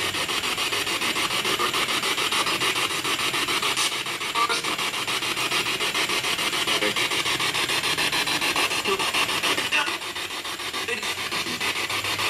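Spirit box, a radio sweeping rapidly through stations and played through a small external speaker: a steady, choppy rasp of static broken by brief snatches of broadcast sound, one of which is taken for a young kid's voice.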